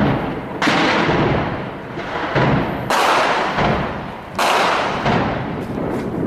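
Three loud bursts of heavy weapons fire in a shelling, the first about half a second in, the next near three seconds and the last about four and a half seconds in, each starting suddenly and rolling on for a second or more before fading. The fire is the Shilka anti-aircraft gun vehicle that was named as shelling the quarter.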